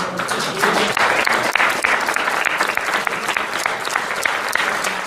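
Audience applauding: dense clapping from many hands that swells in the first second and then holds steady.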